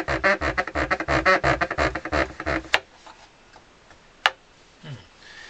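Rapid back-and-forth rubbing of a cloth scrubbing accordion keys with white spirit, about six strokes a second, stopping about two and a half seconds in. Two sharp clicks follow, one just after the rubbing stops and one about four seconds in.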